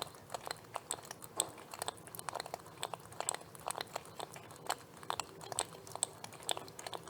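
Lobster making irregular sharp clicks and crackles, several a second, some louder than others.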